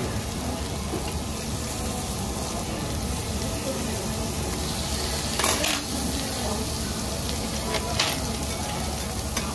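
Slices of beef and pork belly sizzling steadily on a Korean barbecue grill plate, with a few sharp clicks of metal tongs against the plate, the loudest about halfway through.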